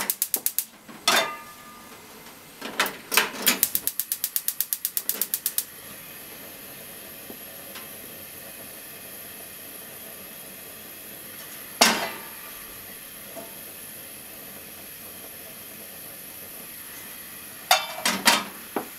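Gas range igniter clicking rapidly, about eight clicks a second with a few knocks between, until the burner lights and runs with a steady faint hiss. A steel frying pan clanks on the burner grate once midway and several times near the end.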